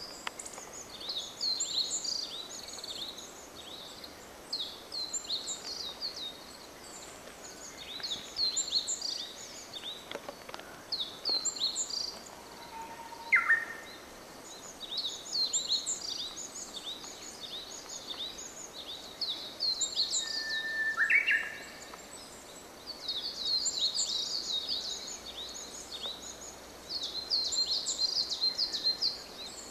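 Wild songbirds singing: bouts of quick, high chirping phrases that come and go all the way through, with a lower Japanese bush warbler song cutting in twice: a short held note followed by a quick rising flourish.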